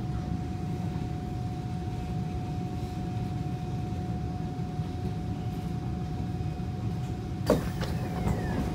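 Steady low rumble and hum inside a Kawasaki C151 MRT train, with a thin steady whine over it. About seven and a half seconds in, the whine stops at a sharp clunk, followed by a short falling whine and a few clicks.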